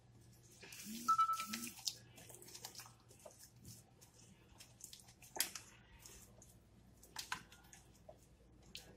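Silicone spatula stirring and scraping a wet egg mixture in a glass bowl, with soft squishing and scattered clicks against the glass. There is a louder stretch of scraping about a second in.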